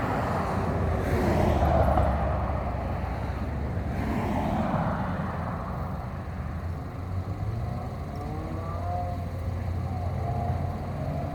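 Road traffic: a steady low rumble with cars passing, swelling about a second in and again about four seconds in.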